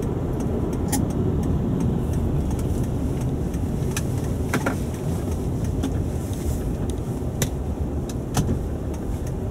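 Car cabin noise while driving on a city street: a steady low road-and-engine rumble heard from inside a 2000 Toyota Avalon, with a few faint clicks here and there.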